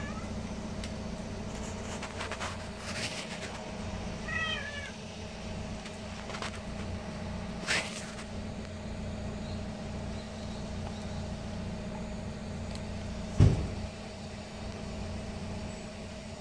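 Street cat giving a short run of quick chirping meows about four and a half seconds in, over a steady low hum. About 13.5 seconds in comes a single loud thump, the loudest sound here.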